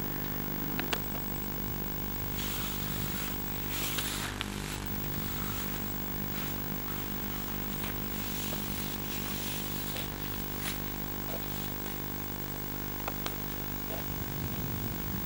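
An engine running steadily at a constant speed, with a few light clicks and brief hissy swells over it.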